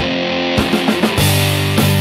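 Background rock music: electric guitar chords over a steady drum beat of roughly one hit every 0.6 seconds. A heavier, louder low guitar part comes in a little past halfway.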